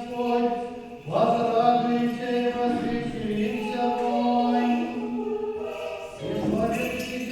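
Orthodox church choir singing unaccompanied liturgical chant in sustained chords, with a short breath and a fresh entry about a second in and again about six seconds in.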